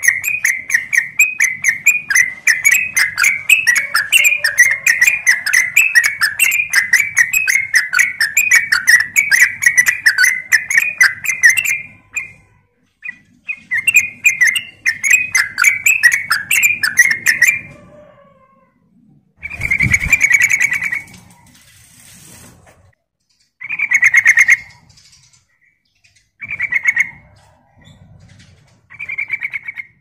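Yellow-vented bulbul (trucuk) singing its fast chattering 'ropel' song. A continuous run of rapid notes lasts about twelve seconds, breaks off briefly, resumes for a few seconds, then gives way to short separate phrases with pauses between them.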